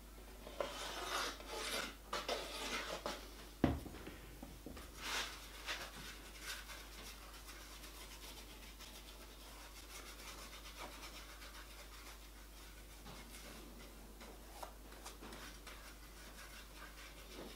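Wood glue being spread by hand across a thin plywood panel: soft, faint rubbing and scraping strokes, busiest in the first six seconds and fainter after that. One sharp knock sounds on the wooden bench a little under four seconds in.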